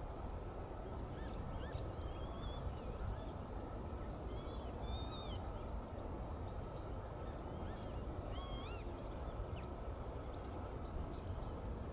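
Small birds chirping with many short, quick notes over a steady low rumble.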